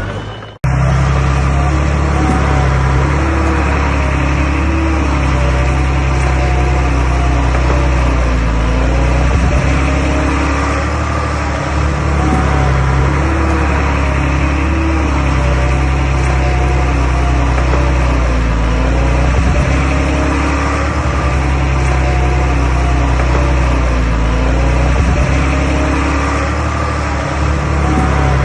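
Komatsu D21A bulldozer's diesel engine running steadily under load as it works, its pitch rising and falling slightly, with occasional knocks from the machine. The sound cuts out briefly about half a second in.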